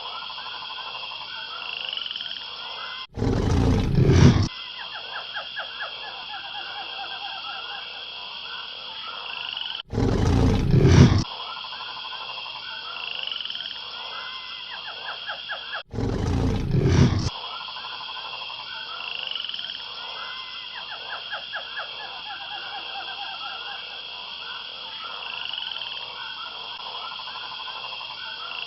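Frogs croaking in a steady chorus over high, steady insect trilling. Three times, the chorus cuts out abruptly and a loud roaring burst of about a second and a half takes its place: a dragon sound effect.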